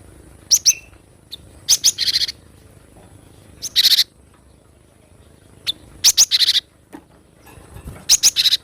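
Cinereous tit (gelatik batu) calling: five phrases about every two seconds, each of two or three sharp high notes running into a short buzzy rattle.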